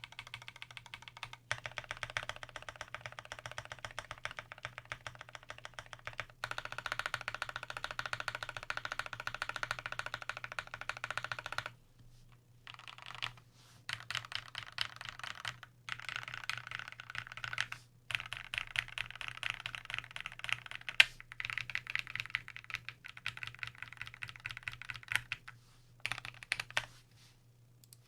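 Typing on a custom aluminium Monstargears XO V3 mechanical keyboard with lubed Everglide Aqua King V3 linear switches, a brass plate and GMK keycaps. The keystrokes come in fast, dense runs broken by short pauses, and the typing stops about a second before the end. A steady low hum sits underneath.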